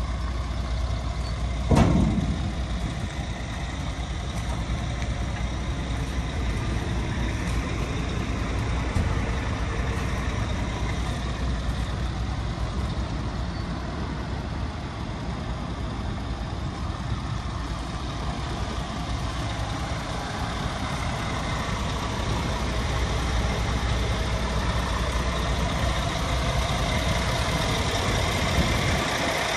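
Scania P370 tipper's five-cylinder diesel engine idling steadily with a low rumble. A single sharp knock stands out about two seconds in.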